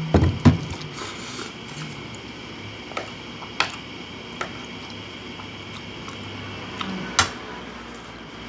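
Close-up eating sounds of spaghetti being forked up, slurped and chewed, with two strong knocks right at the start and a few sharp clicks of a metal fork on a ceramic plate.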